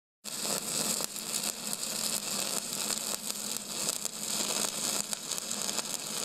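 Steady crackling hiss, like static, with a faint low hum underneath.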